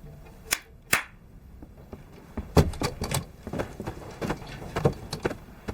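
A series of sharp knocks and thuds, two about half a second apart near the start, then a dozen or so at an irregular pace of roughly two to three a second for about three seconds.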